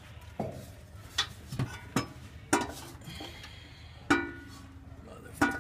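Stamped sheet-metal air cleaner housing knocking and clanking against the carburetor and engine parts as it is worked into place by hand, about half a dozen sharp knocks with short metallic ringing. The stock housing will not clear the engine's distributor.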